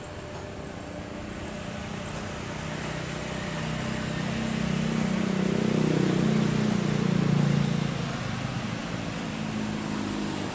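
Jet airliner engines rumbling as the plane passes during its takeoff. The sound builds steadily over several seconds, is loudest about six to seven seconds in, then falls away.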